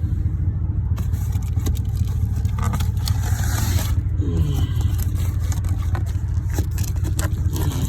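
An engine idling with a steady low rumble. From about a second in there are scattered scrapes and knocks of cardboard firework cases being shifted about.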